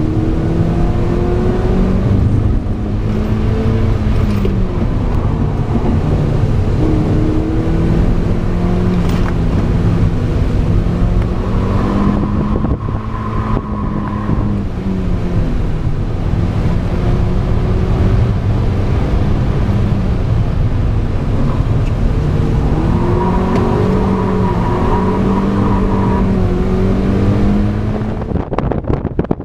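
Mazda MX-5 NB's 1.8-litre four-cylinder engine heard from inside the cabin, revving up and falling back again and again as the car is drifted. Near the end it gives way to wind rush.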